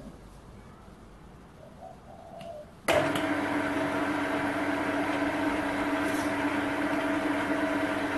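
Small Chinese metal lathe switched on about three seconds in, then running steadily with a hum from its motor and gear train as it turns the leadscrew, spreading freshly applied Loctite 767 lubricant along the screw. A few light handling clicks come before it starts.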